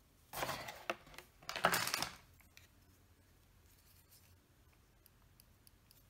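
Packaging being handled: two short bursts of rustling and scraping about a second apart, then a few faint clicks near the end.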